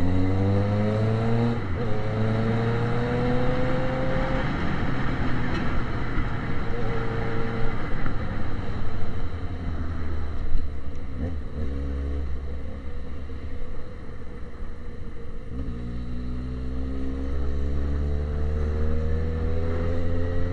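Yamaha XJ6 motorcycle's inline-four engine through a pipe-only exhaust with no silencer, pulling away with rising pitch and a gear change about two seconds in. It eases off through the middle, then accelerates again with rising pitch near the end.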